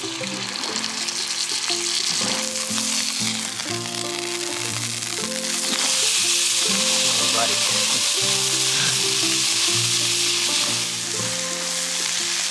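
Venison back steak sizzling in a hot cast iron skillet over campfire embers; the sizzle gets louder about halfway through. Background music plays underneath.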